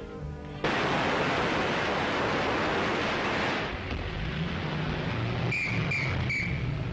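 A sudden burst of loud, rattling gunfire lasting about three seconds, fired from a passing car on an old film soundtrack, then the car's engine running as it drives off, with short shrill blasts repeating near the end.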